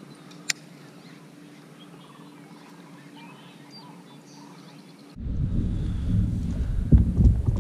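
Wind buffeting the microphone with a heavy low rumble, starting suddenly about five seconds in. Before that, a quiet, calm background with a low steady hum, one sharp click and faint bird calls.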